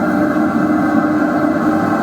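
Blacksmith's forge running: a steady rushing noise with a constant hum in it.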